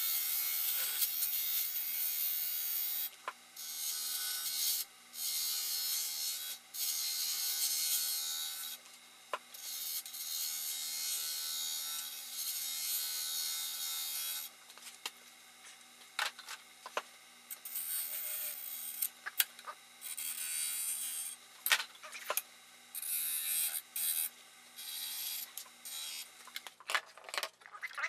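Turning tool cutting into spinning wood on a lathe: a scraping hiss in passes several seconds long, broken by short pauses, becoming shorter and choppier in the second half with a few sharp knocks, over the faint steady hum of the lathe running.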